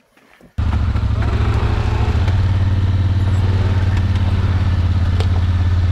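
ATV engine running steadily under way, cutting in abruptly about half a second in, with a strong low hum.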